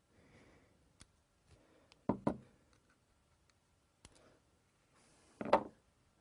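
A few small, sharp clicks and taps: a small tool and hands working a tiny jumper off the pins of a hard drive. The two loudest come as a quick pair about two seconds in, with another near the end.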